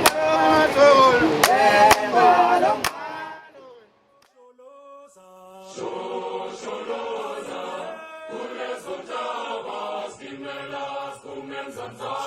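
A group of voices chanting in song, loud, with sharp percussive beats, breaking off about three seconds in. After a short near-silent gap, quieter group singing with held notes resumes.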